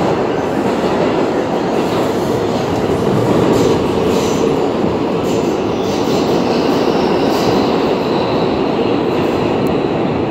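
New York City subway car running, heard from inside the car: a steady loud rumble of wheels on rails. A faint high wheel whine comes in about seven seconds in.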